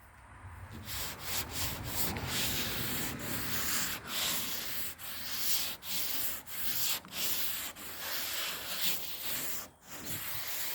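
Sandpaper rubbed by hand back and forth over the painted body of a 1978 Ford pickup, taking the old top coat down toward the original paint. The scratching starts about a second in and goes in even strokes, roughly one a second.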